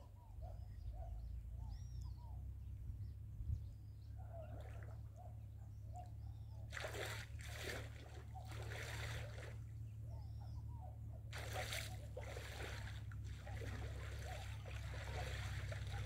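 Small waves lapping and splashing at the shallow water's edge, getting louder about seven seconds in, over a low wind rumble on the microphone. Faint bird calls come through in the first half.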